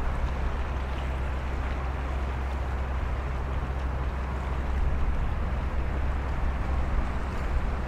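Small tug's diesel engine droning steadily as it moves the survey vessel along, with water rushing at the bows and some wind.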